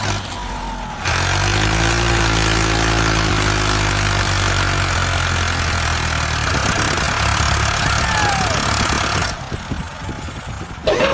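A motor or engine running steadily with a rattling, jackhammer-like noise, dropping away about nine seconds in.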